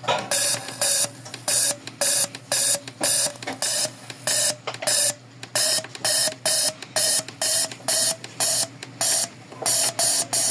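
Suzuki Celerio fuel injector being pulsed on a tester: short repeated bursts, about three a second, each a buzzing solenoid click with a hiss of sprayed fuel, with a brief pause midway.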